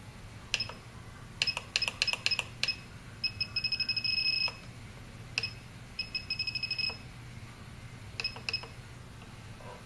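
Hobby RC radio transmitter beeping at each button press as its throttle sub-trim is stepped down: single short beeps and quick runs of rapid beeps, two runs about three and six seconds in.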